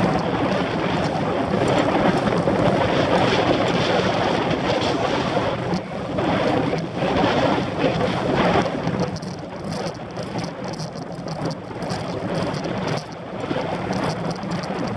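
Wind rushing and buffeting over the microphone of a handlebar-mounted camera on a moving road bike, louder for the first nine seconds or so, then easing off.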